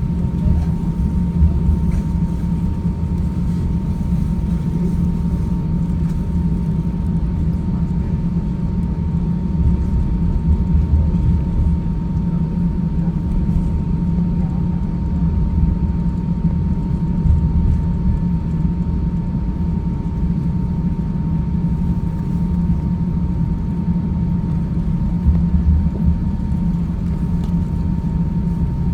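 Cabin noise inside an Airbus A350-900 with Rolls-Royce Trent XWB engines, as the jet departs: a steady, loud low rumble with a thin, steady whine above it.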